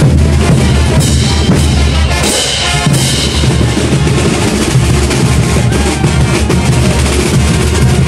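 Live Bolivian brass band playing morenada, driven by bass drum, snare and cymbals. The bass drops away briefly a little over two seconds in, under a bright wash of cymbals, then the full band returns.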